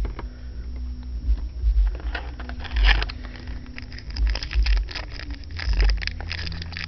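Trading cards and foil card-pack wrappers being handled: irregular crackling and rustling, with dull low thumps from handling.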